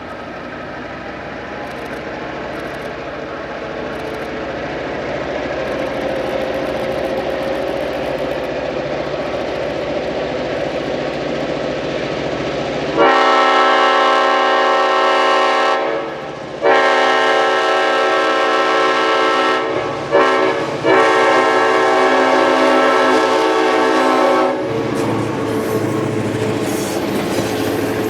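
EMD GP9 diesel locomotive approaching, its engine rumble swelling steadily louder, then sounding its air horn about halfway through in the grade-crossing pattern: long, long, short, long. After the horn, the locomotive and train run past with wheels clicking over the rail joints.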